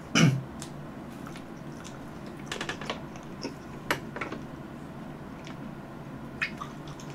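Close-up mouth sounds of eating fresh cherries: biting and juicy chewing heard as scattered soft clicks and smacks, with a short, louder mouth sound right at the start.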